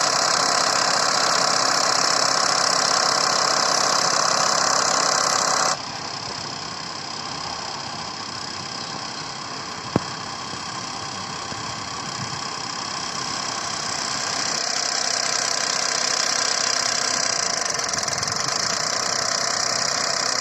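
Toyota Duet engine running, in a video about a cold-start knock that the owner traced to its VVT-i clutch. A loud hiss over it stops abruptly about six seconds in, and there is a single sharp click about ten seconds in.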